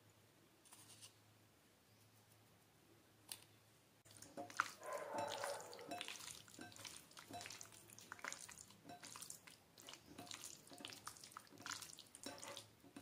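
Raw chicken pieces being mixed in a wet yogurt-and-spice marinade in a bowl: faint, irregular wet clicks and squelches, starting about four seconds in after one sharp click.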